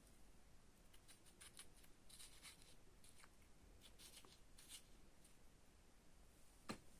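Near silence, with faint scratchy rustling for a few seconds from about a second in, and one sharp click near the end.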